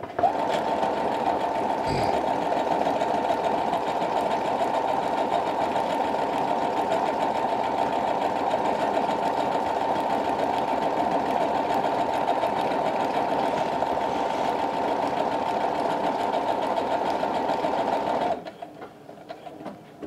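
Brother HC1850 computerized sewing machine stitching steadily at an even speed through a programmed stitch sequence. After about eighteen seconds it abruptly drops to a much quieter run as the pattern comes to its end.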